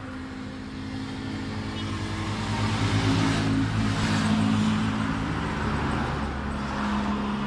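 An engine running with a steady low hum. It grows louder toward the middle and eases off near the end.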